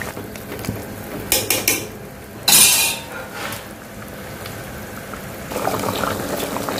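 Metal ladle working eggplant pieces into a simmering curry gravy in an aluminium pot. There are a few short scrapes and knocks about a second in and a louder one about two and a half seconds in, over the soft bubbling of the gravy.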